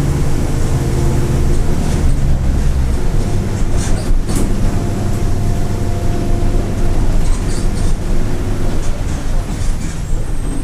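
Mercedes-Benz OF-1722M city bus under way: the turbodiesel engine running with turbocharger whistle and a growl from the differential. The deep engine note drops away about three seconds in, and a thin steady whine comes in around the middle.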